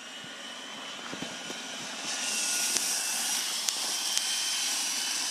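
Electric drive of a radio-controlled Tatra 148 dump truck model whining steadily as it drives over gravel, growing louder about two seconds in as it comes close, with a few sharp clicks.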